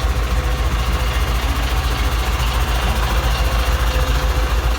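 Truck diesel engine running steadily, a low, evenly pulsing rumble.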